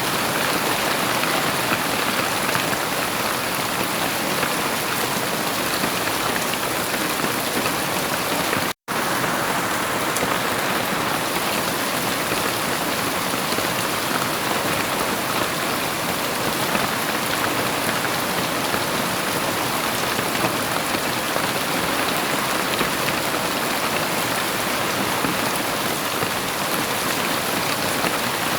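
Heavy rain falling steadily, a dense even hiss of drops, with no thunder. It cuts out completely for an instant about nine seconds in, then carries on unchanged.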